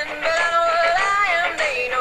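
Music: a song with a singing voice carrying the melody.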